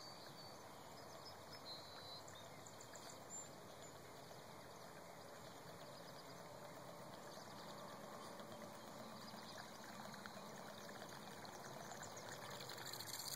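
Booyah buzzbait retrieved across the pond surface, its spinning blade churning and sputtering the water. Faint, growing gradually louder as the lure comes in.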